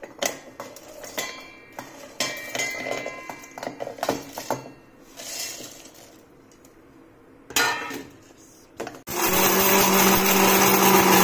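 Whole spices (cinnamon sticks, cardamom pods, cloves, nutmeg) rattling and clinking as they are tipped from a steel plate into a stainless-steel grinder jar, then a knock. About nine seconds in, the electric mixer grinder starts and runs loudly with a steady hum, grinding the whole spices into garam masala powder.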